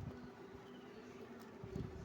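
Faint, soft low knocks over a steady low hum, with a few knocks about three-quarters of the way through.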